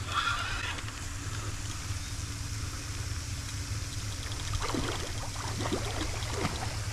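Water splashing and sloshing from a hooked alligator thrashing on the line, in bursts near the start and again later, over a steady low rumble.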